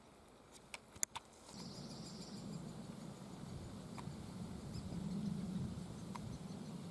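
A few sharp clicks about a second in, then a steady low rumble sets in. Faint high-pitched chatter of great spotted woodpecker nestlings shows briefly just after the rumble starts.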